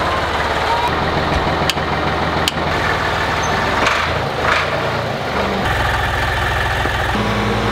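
Ford farm tractor's engine running while it tows a livestock trailer, a steady low engine note that shifts speed a few times, with a few light clicks.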